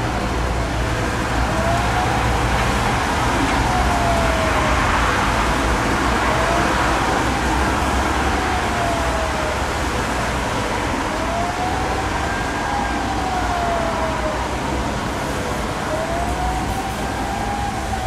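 Civil-defence warning sirens wailing in a slow rise and fall, about one swell every five seconds, over steady street traffic. This is the rising-and-falling warning signal of a siren test alarm.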